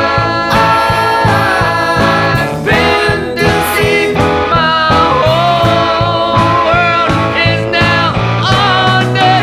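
Recorded rock song by a full band, with a sung vocal melody over guitars and steady drums.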